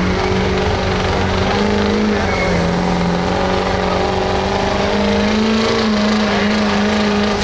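Pulling truck's engine held at high revs under load as it drags the sled, a loud steady drone whose pitch wavers a little and lifts slightly about five seconds in.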